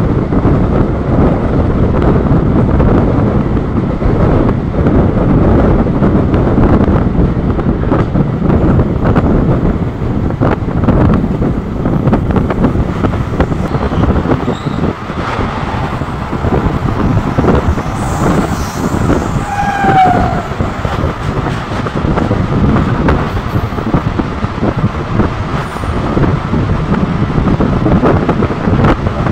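Moving local passenger train heard from its open doorway: a loud, steady rumble and clatter of wheels on the rails with wind, joined by the covered wagons of a goods train running alongside on the next track. A brief high squeal slides down in pitch about two-thirds of the way through.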